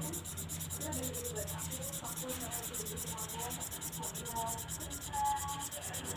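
Felt-tip twin pen marker scrubbing quickly back and forth on HVS paper while colouring in, about eight strokes a second, over a steady low hum.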